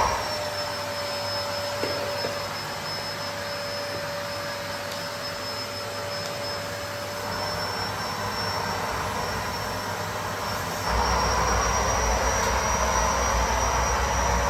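Bagless vacuum cleaner running with a steady drone and a thin high whine. About eleven seconds in it turns abruptly louder, with a deep rumble added.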